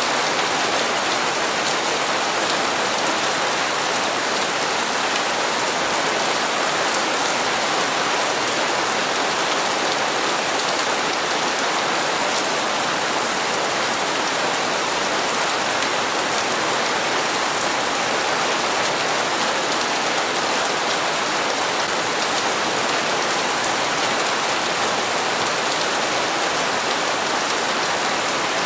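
Steady rain falling and pattering on hard surfaces, an even hiss with fine drop ticks and no change in strength.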